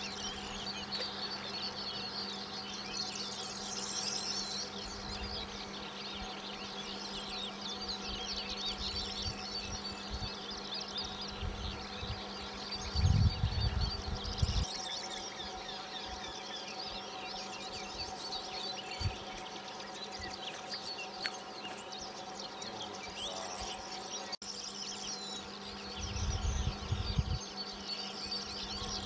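Many songbirds singing at once, a dense, unbroken chorus of chirps and trills, over a steady low hum. Two brief low rumbles come through, about halfway and again near the end.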